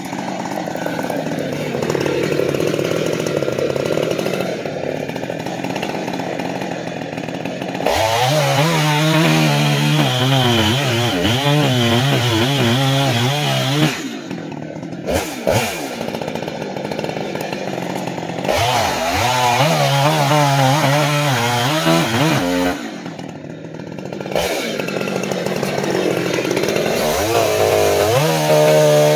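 A Jonsered 2186 two-stroke chainsaw running hard through a big log, its engine note pulling down and wavering under load during the cuts. Twice the revs drop off briefly between cuts before it digs in again.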